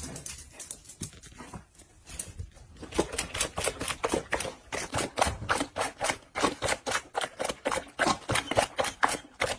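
A fast run of sharp taps, about four to five a second, from about three seconds in; before that the taps are fainter and scattered.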